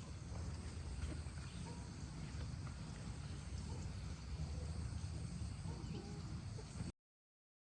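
Outdoor ambience: a steady low rumble with faint scattered chirps, which cuts off abruptly into total silence about seven seconds in.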